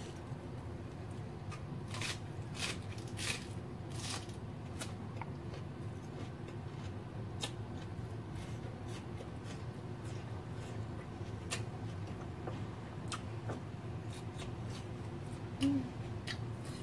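Eating sounds of a person eating rice and beef stir-fry by hand: chewing with scattered wet mouth clicks and lip smacks, fingers working the rice, over a steady low hum. A short hummed 'mm' near the end.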